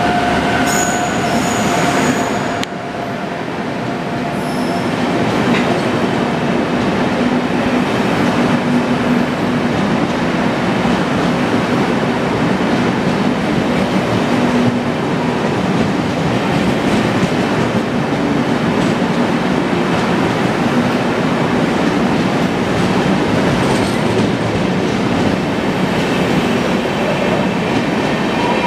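Indian Railways WAP-7 electric locomotive and its double-decker coaches rolling past at speed, a loud, steady rumble of wheels on rail with some clatter and wheel squeal. A steady whine is heard at first and stops a couple of seconds in as the locomotive moves on; the coaches keep running past steadily after that.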